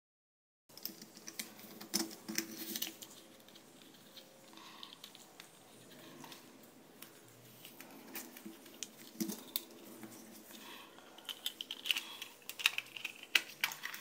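Light plastic clicks and rattles of a computer mouse being handled and put back together, its circuit board and shell parts knocking and snapping. A few sharp clicks come about two seconds in, and a quick run of clicks near the end.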